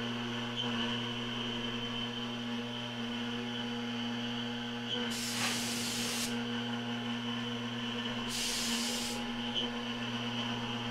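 TorqueCNC 9060 router spindle running steadily with a hum while routing a Corian sheet. Twice, about five and eight seconds in, a hiss of about a second blows chips and dust off the cut.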